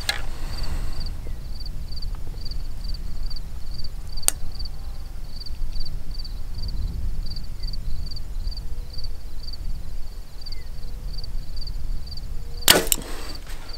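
Mathews VXR compound bow held at full draw, then shot near the end: a sharp snap of the string and limbs as the arrow is released. Before the shot an insect chirps steadily about three times a second over a low rumble of wind.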